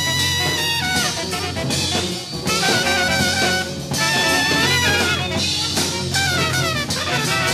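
Jazz ensemble playing: trumpet and saxophone lines winding and falling over drums and a steady low note, heard from a cassette dub of a reel-to-reel studio master tape.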